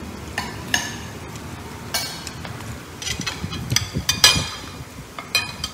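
Metal knife and fork clinking and scraping against a china plate while food is cut: a string of sharp, ringing clinks at irregular intervals.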